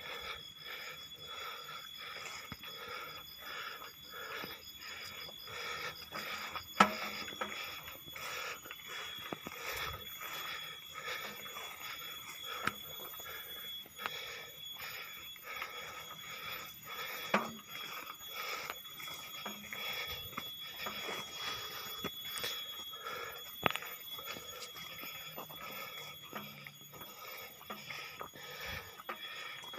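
Insects trilling in a steady high-pitched drone in the vegetation, with scattered footsteps and rustling on a dirt path and three sharp clicks.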